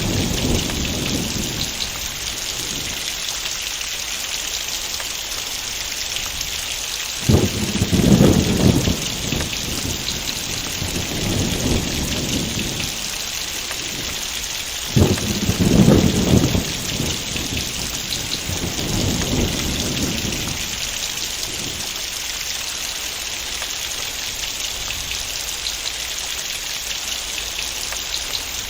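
Heavy rain falling in a steady hiss, with thunder: two sudden thunderclaps about seven and fifteen seconds in, each rolling on for a couple of seconds, and fainter rumbles between them.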